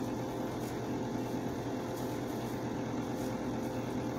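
Steady low mechanical hum, like a household machine running, with a few faint ticks.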